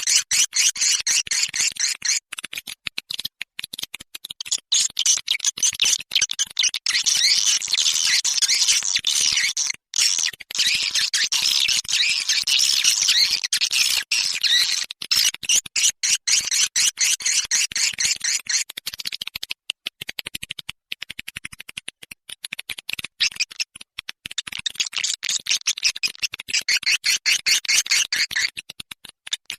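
Swiftlets twittering in a dense chorus of rapid, high chirps and clicks, with brief breaks about a third and two thirds of the way through. It is a recorded swiftlet lure sound of the kind played to call birds into a swiftlet house.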